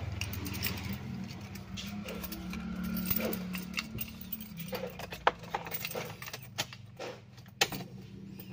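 Car keys jangling and clicking as the key goes into a Toyota Avanza's ignition and is turned to ON, with two sharp clicks about five and seven and a half seconds in. A steady low hum runs underneath.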